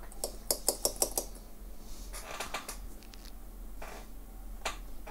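A quick run of about six sharp clicks and taps from small hard tools handled on a repair bench, a brief rustle a little after two seconds, and one more click near the end.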